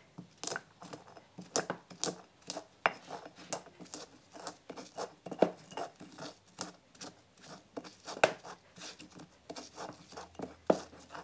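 Stone pestle grinding and crushing allspice berries, onion and salt in a volcanic-stone molcajete: irregular gritty scrapes and knocks of stone on stone, a few each second.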